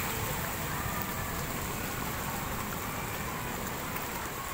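Floodwater rushing along a narrow alley between houses: a steady rushing noise with a low rumble underneath.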